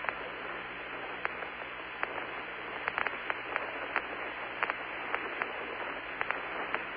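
Open Apollo radio voice link with no one talking: a steady hiss of static with a faint low hum, broken by scattered sharp clicks and crackles.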